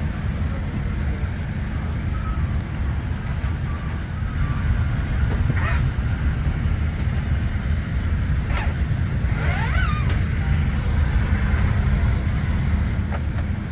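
Steady low rumble inside a Boeing 787-9 airliner cabin.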